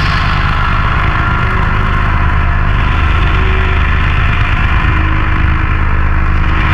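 Power-noise electronic music: a loud, steady wall of distorted noise over a heavy low drone.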